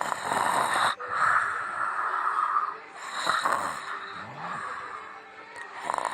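Loud snoring: a few rasping snores and snorts, each about a second or two long, with short breaks between them.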